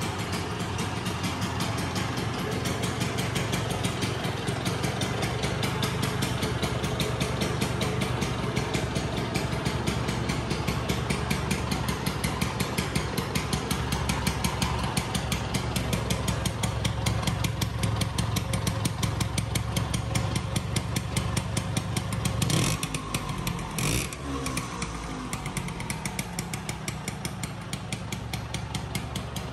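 1968 Piaggio Vespa 50 S two-stroke single-cylinder engine idling with a steady, rapid putter. About two-thirds of the way through there is a brief noisy blip, after which it runs a little quieter.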